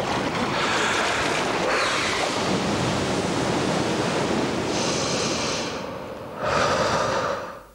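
Steady rushing noise of wind and surf, easing a little and then swelling again briefly near the end before it dies away.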